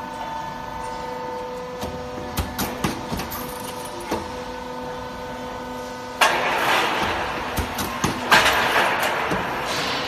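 Cable tray roll forming machine running at its hydraulic punching station: a steady hum with scattered metallic clicks, then about six seconds in a loud hissing rush cuts in and surges twice more.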